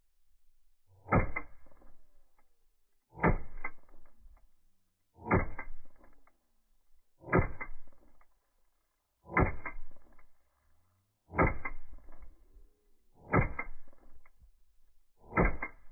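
Eight .22 caliber pistol shots from a Beretta 92FS with a .22 conversion kit, in a slowed-down recording. Each shot is stretched into a low, drawn-out blast that trails off over about a second, and they come about two seconds apart.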